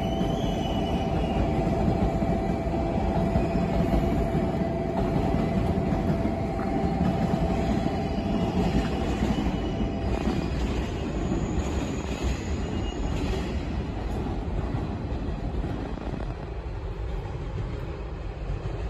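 Train running on the rails, heard from on board: a steady rumble of wheels on track with a steady whine that cuts off about halfway through. The noise eases somewhat near the end.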